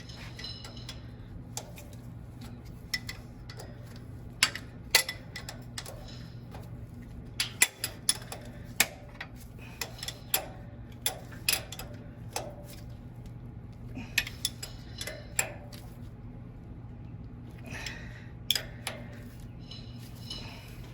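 Irregular metallic clicks and clinks of a wrench working a nut tight on a tractor's PTO lever shaft, some in quick clusters, over a steady low hum.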